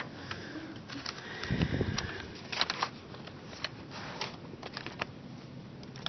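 Quiet classroom: scattered clicks and taps from students working at laptops, with a brief low murmur of voices about a second and a half in.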